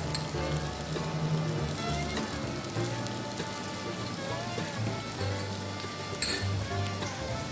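Chopped onion sizzling in butter on a hot flat-top griddle, a steady frying hiss. Background music with a bass line plays under it.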